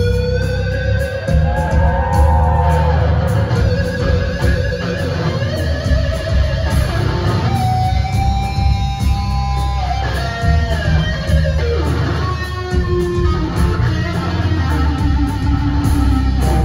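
Live rock band playing loud, with a lead electric guitar taking long held and bent single notes over bass guitar and drums.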